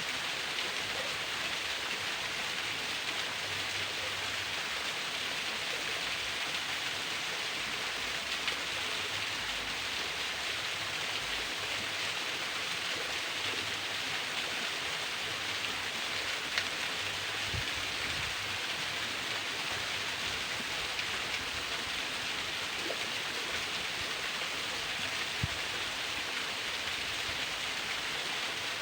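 A thin waterfall's stream of water falling and splashing, a steady even rush, with a few faint drip-like ticks.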